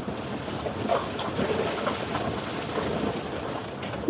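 Maruti Suzuki Alto 800 driving slowly over a rough, unpaved mountain track: a steady noise of the car and its tyres on the rough ground, with a few faint small knocks.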